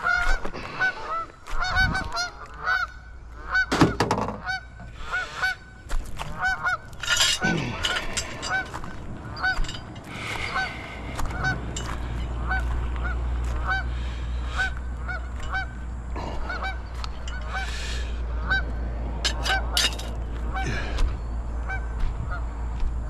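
Geese honking, short calls repeating over and over, with a few sharp knocks in between. About halfway through a steady low rumble sets in under the calls.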